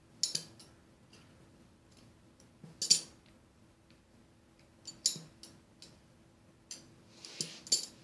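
Hard tagua-nut bracelet slices clicking against each other as they are handled and strung, in short clusters of sharp clicks every second or two, the loudest about three seconds in.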